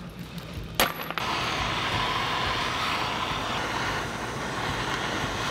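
A sharp metallic click about a second in, then the steady hiss of a handheld gas torch flame heating the subframe metal around a rubber bushing to loosen it.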